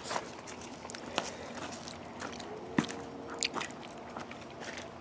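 A person biting into and chewing barbecued meat close to the microphone: scattered wet clicks and smacks, the sharpest nearly three seconds in.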